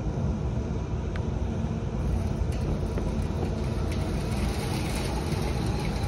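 Rooftop downblast exhaust fan starting up on its new 115-volt motor, with a rush of air coming in about two seconds in over a steady low rumble as the spinning impeller blows out loosened debris as dust.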